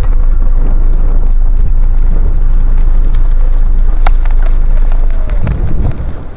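The diesel engine of a small road-works loader running close by as a motorcycle rides slowly past it on gravel, mixed with the bike's own engine and wind on the microphone. Near the end the loud engine rumble falls away as the loader is left behind.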